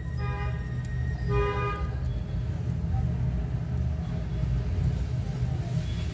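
A horn-like tone sounding twice, briefly, over a steady low hum.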